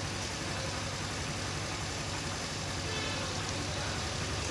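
Suzuki GR 150 motorcycle's single-cylinder engine idling steadily.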